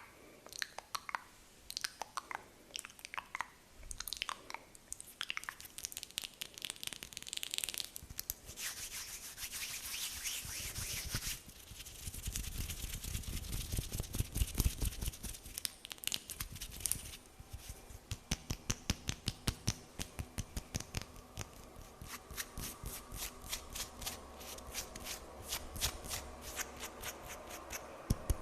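Close-miked ASMR fingernail tapping and rubbing on hands: crisp clicks, a scratchy rubbing stretch in the middle, then fast, even tapping at about four taps a second in the second half.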